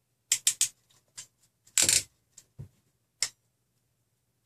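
Hand crimping tool clicking as it crimps connector terminals onto wire ends: three quick sharp clicks, a louder, longer rasping crunch about two seconds in, then a single click near the end.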